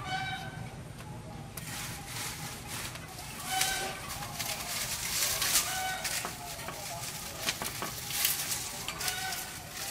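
A farm animal calling in short high calls, four of them about three seconds apart, over a steady hiss.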